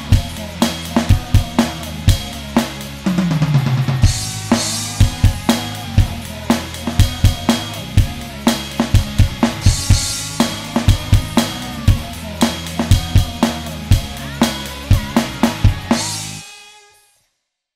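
Rock drum beat of kick, snare, hi-hat and crash cymbals played on an electronic drum kit over a rock song backing track. The song ends about sixteen seconds in on a final cymbal crash that dies away within a second, leaving silence.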